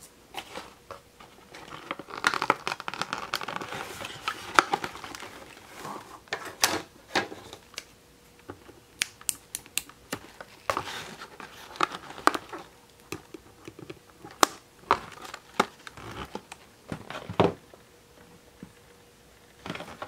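Scissors snipping and packaging crinkling as a doll's handbag accessory is cut free from the cardboard box insert: irregular clicks and crackles, thickest in the first few seconds.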